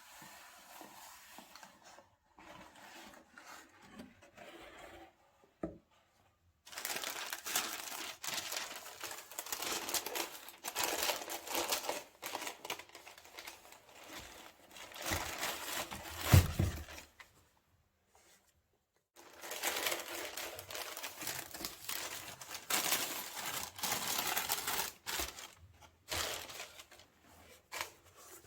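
Paper packaging rustling and crinkling in irregular bursts as a sneaker box is unboxed by hand, with one loud thump about halfway through.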